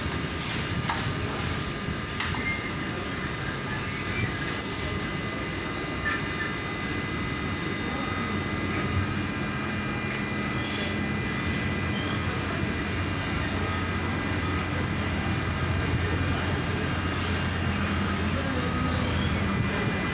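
A steady, low mechanical rumble with a faint steady whine and scattered short clicks.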